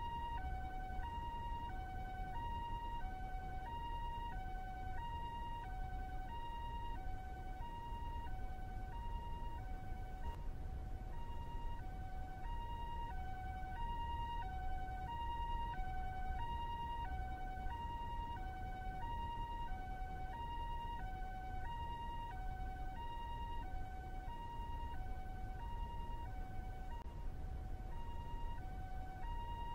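Japanese ambulance siren sounding its two-tone hi-lo call, a higher and a lower tone alternating about every two-thirds of a second, over a low steady rumble.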